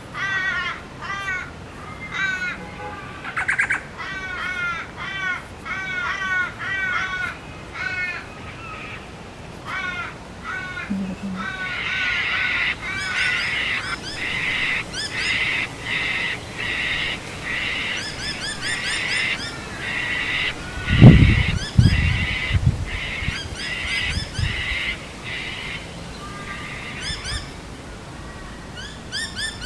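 Ravens calling with other birds: many short repeated calls early on, then a dense, steady chorus of higher-pitched calls for about fifteen seconds. About two-thirds of the way through there is one loud low thump, the loudest sound in the stretch.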